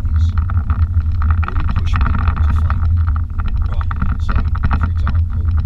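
Steady low drone inside the cabin of a moving BMW M5: engine and road noise while driving.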